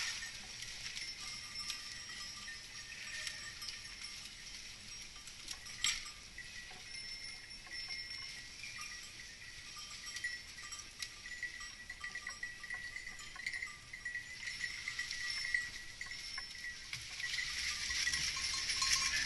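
A herd of goats passing over rock, with bells clinking now and then, a few sharp clicks, and a steady high hiss behind them.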